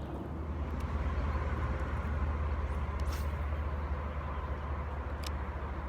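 A small boat's motor running with a steady low hum, with two light clicks along the way.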